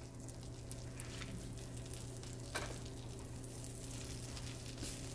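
Salted butter sizzling as it melts in a hot nonstick frying pan, a steady soft hiss with fine crackling over a low steady hum. A light tap about two and a half seconds in.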